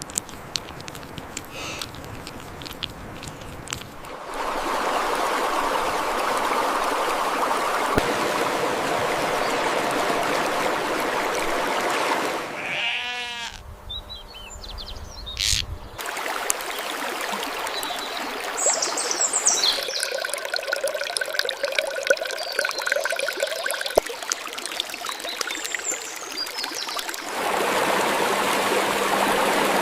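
Water running and trickling, heard through a string of clips that change abruptly every few seconds, with farm animals bleating at times.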